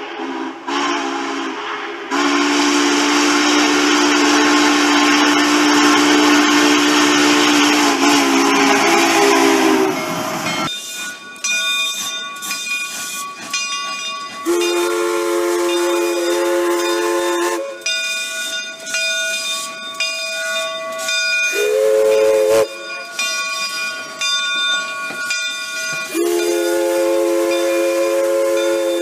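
Steam locomotive whistle blowing a long, low chord wrapped in loud steam hiss for about ten seconds, ending with a slight waver in pitch. Then a cleaner multi-note chime whistle sounds almost without a break, its lower notes coming in and out in several blasts of one to three seconds.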